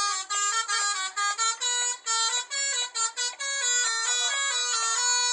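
Telolet basuri horn of an SJM Trans bus playing a quick melody: a run of short, separate horn notes at changing pitches, with a longer held stretch in the second half.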